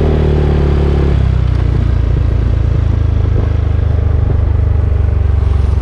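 Honda ADV350 scooter's single-cylinder engine running under way. Its note drops about a second in, then holds as a steady lower drone.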